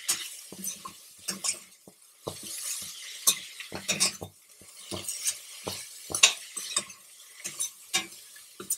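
Cooking utensil stirring and tossing a fried paneer and vegetable stuffing in a hot pan: irregular scrapes and knocks against the pan over a light sizzle.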